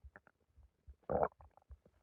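Human stomach gurgling after a big meal and a soda: scattered faint squelches and clicks, with one louder gurgle about a second in.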